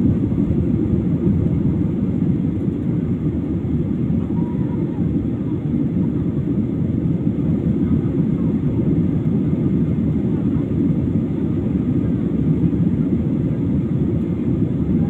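Airliner cabin noise: the steady low rumble of the engines and airflow heard from a passenger seat.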